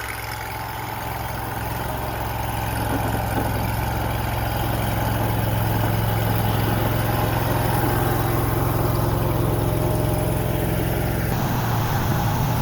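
Mini skid steer's engine running steadily, growing louder over the first few seconds, with an abrupt shift in its sound near the end.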